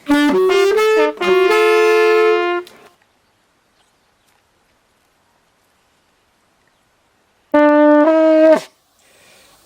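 A loud wind instrument plays a quick run of short notes that ends in a held note. After several seconds of silence it plays two more notes.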